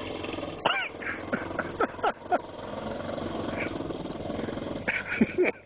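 Golf cart's small engine running with a steady drone. Several brief, loud squeals sweep up or down in pitch over it.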